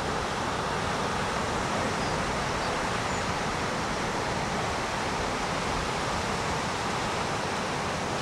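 Steady rushing roar of breaking ocean surf.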